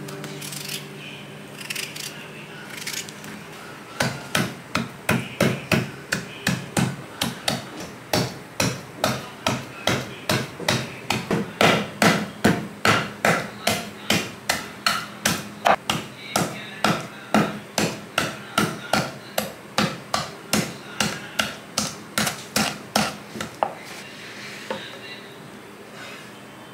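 A hand-held smooth stone pounding boiled potato pieces against a wooden chopping board, crushing them for aloo thechwani. After a few scattered light knocks, it settles into a steady run of knocks, about two a second, which stop a few seconds before the end.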